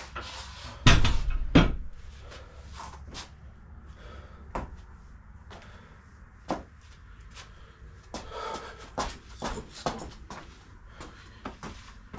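Gym equipment being handled: two loud, heavy thuds close together about a second in, then scattered lighter knocks and clicks, busiest near the end.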